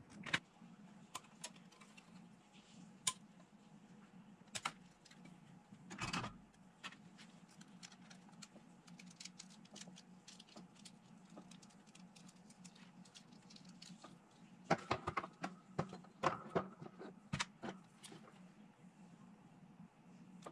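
Hard plastic miniature parts handled and fitted together, giving scattered light clicks and taps with a busy run of them about 15 seconds in, over a steady low hum.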